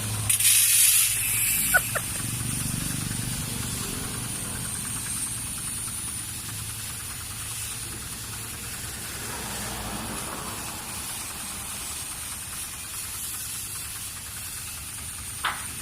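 Water spraying hard onto a vehicle being washed: a loud hissing burst about a second long at the start, then a steady hiss of spray over a low hum, with a couple of sharp clicks.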